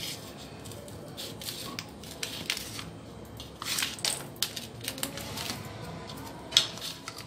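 Metal knife scraping and clicking against a steel plate as a sheet of cooled, hardened caramel nut brittle is pried loose, with irregular small clicks and one sharper click near the end.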